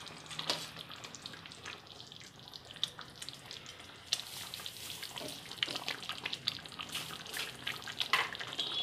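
Chicken curry gravy simmering in a steel wok, with small pops and a metal ladle stirring and scraping against the pan; the pops and clicks come thicker in the second half.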